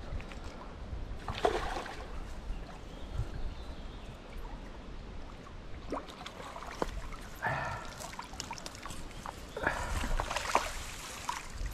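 A hooked pike splashing at the surface as it is played in close on a bent rod, with splashes about a second and a half in, around seven and a half seconds, and again near the end. Low wind rumble on the microphone underneath.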